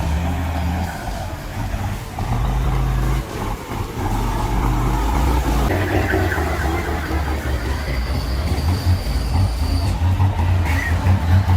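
Heavy truck engine running hard under load, its note shifting several times, as it strains to pull free of deep mud.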